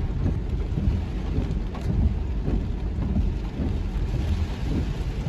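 Car driving through heavy hurricane rain, heard from inside the cabin: a steady low rumble, the loudest sound, with the hiss of rain over it.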